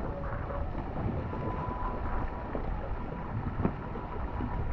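Wind buffeting the microphone and water rushing along the hull of a Viper sport catamaran under sail, a steady noisy rush. A faint steady whistle runs under it from about a second in, and there is a single knock about three and a half seconds in.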